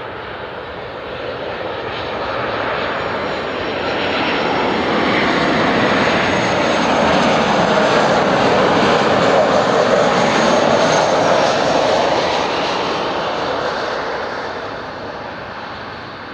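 Boeing 737-800's two CFM56-7B turbofan engines at approach power as the airliner flies past on final approach. Steady jet noise with a faint high whine swells to its loudest about midway, then fades.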